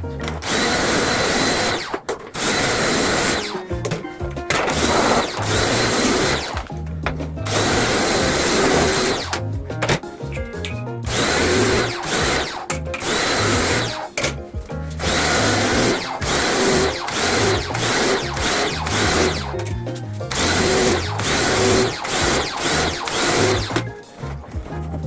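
Handheld power tool, drill-like, running in repeated bursts of one to a few seconds with short pauses between, over background music with a steady low beat.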